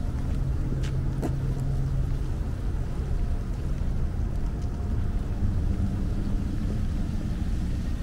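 Street traffic rumbling steadily, with a low engine hum that drops away about two and a half seconds in.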